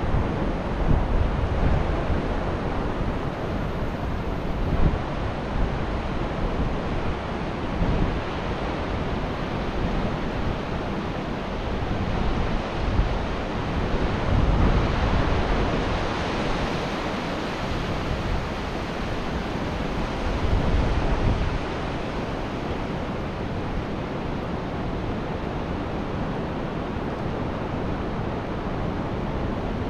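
Ocean surf washing ashore in a continuous wash, swelling louder now and then, with wind gusting on the microphone.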